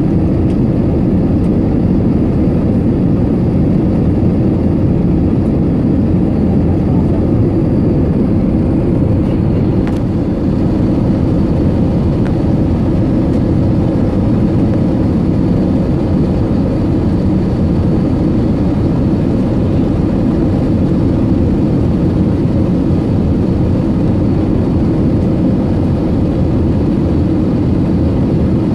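Cabin noise of an Airbus A320neo in descent, heard from a window seat beside the wing engine: a steady, even rumble of engine and airflow noise, mostly low in pitch.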